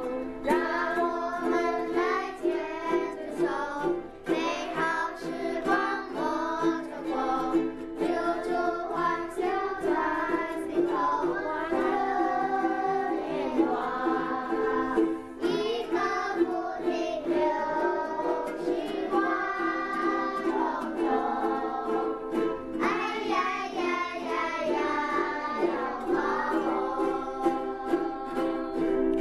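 A group of children strumming ukuleles and singing a song in Mandarin together.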